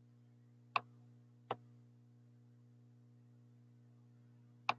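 Three sharp computer mouse clicks, two close together early and one near the end, over a faint steady low hum.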